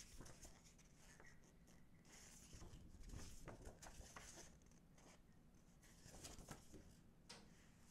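Faint rustling and soft ticks of glossy photo prints being flexed and turned over in latex-gloved hands. It is busiest a couple of seconds in and again about six seconds in.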